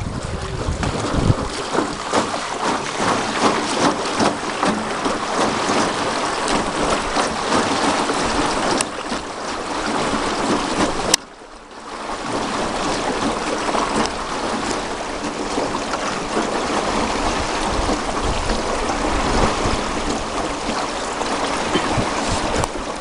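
Wind buffeting the microphone over water splashing and lapping around a small rowed boat, a steady rushing noise. A sharp click and a brief drop-out about eleven seconds in, after which the same noise resumes.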